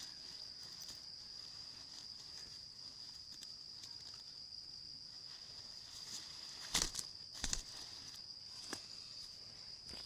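Steady high-pitched insect drone, with a few short rustles and knocks from a cloth bag being handled about seven seconds in and again near the end.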